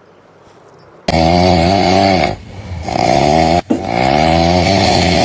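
Loud snoring: three long, rattling snores, the first starting about a second in.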